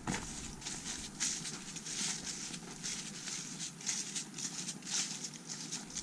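Footsteps crunching along a dirt trail strewn with dry fallen leaves and grass, about two steps a second.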